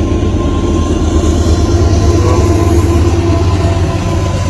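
Train passing close by: a steady heavy rumble with a thin, steady tone running over it.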